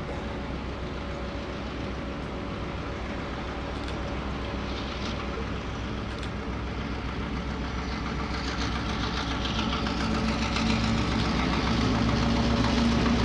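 Streamlined Chesapeake and Ohio diesel cab-unit locomotive hauling a passenger train on its approach. The engine rumble and the wheel-on-rail noise grow steadily louder as it nears, and a steady engine hum comes in about two-thirds of the way through.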